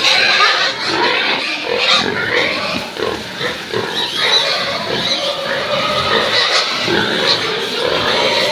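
Many domestic pigs calling at once, grunts and squeals overlapping in a continuous din with no break.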